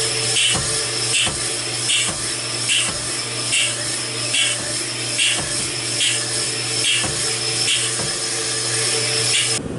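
Vertical cylinder hone running in the bore of a Kawasaki KLR dual-sport motorcycle cylinder under a flow of oil, taking out the final few thousandths to put the cross-hatch in after boring oversize. A steady machine hum runs under a regular scraping pulse, a little faster than once a second. The sound stops abruptly just before the end.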